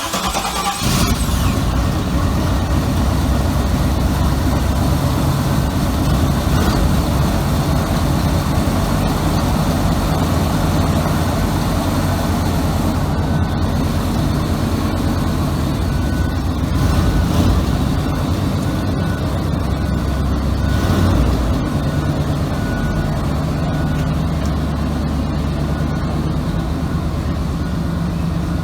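Car engine running steadily and close by, starting abruptly at the outset and holding an even pitch throughout.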